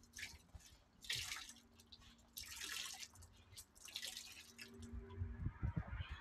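Water splashing and dripping in three short bursts onto a vinyl pool liner, over a faint steady hum.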